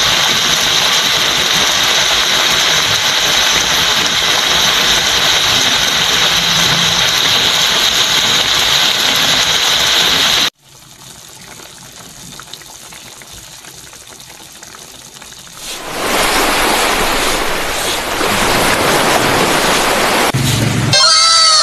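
Tuna simmering in coconut milk in a pan: a steady bubbling hiss. It drops off suddenly about ten seconds in, stays low for about five seconds, then rises again.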